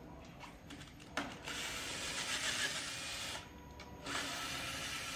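Cordless drill-driver running on handlebar bolts in two runs of about two seconds each, the first after a short click about a second in.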